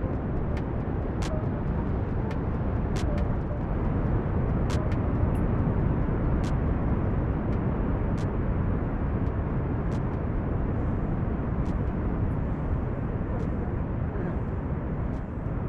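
Steady rush of wind on the microphone mixed with sea surf, heaviest in the low end, with a few faint high ticks scattered through it.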